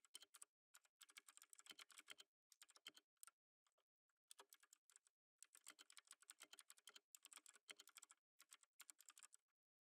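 Computer keyboard typing: quick runs of soft key clicks in short bursts with brief pauses, one of nearly a second a few seconds in.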